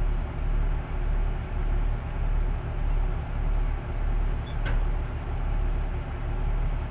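Diesel engine of heavy earthmoving equipment running steadily under load, a low drone that swells and dips in a slow, even pulse.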